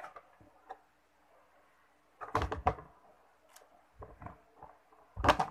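Cardboard product box being handled: a few dull knocks and thumps about two seconds in, lighter taps around four seconds, and the loudest thumps near the end.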